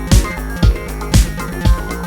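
Background music with a steady beat, a deep drum hit about twice a second over sustained notes.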